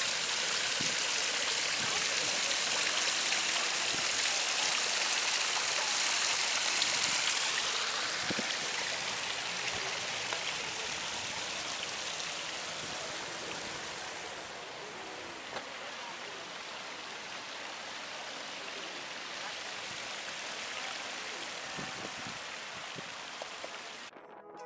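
Plaza fountain's falling water making a steady splashing hiss. It fades after about eight seconds to a quieter steady rush.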